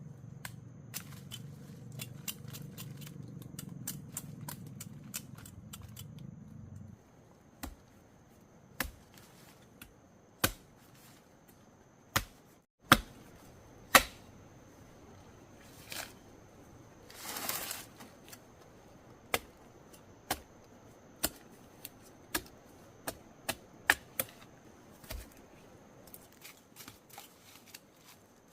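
Sharp knocks of a digging tool striking soil and roots as a large giant taro root is dug out, mostly about one a second, with one short scraping rustle in between.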